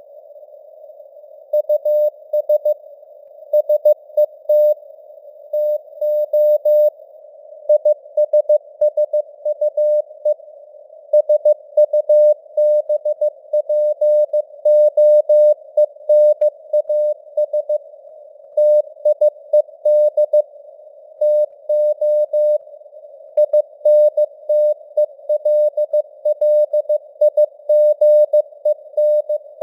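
Morse code (CW) sent at 15 words per minute: a single tone near 600 Hz keyed in dots and dashes, over a narrow band of simulated radio hiss, with the signal strength drifting slightly as it fades (QSB).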